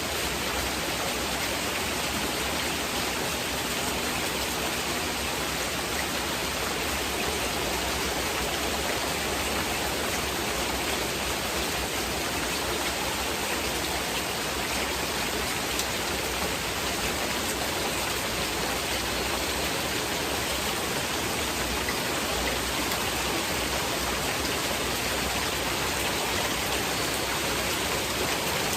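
Heavy rain falling steadily, an even hiss with no single drops standing out, blended with masking noise.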